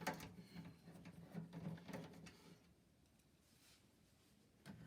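A few faint clicks and knocks as parts of an old microwave are worked loose by hand in the first couple of seconds, then near silence.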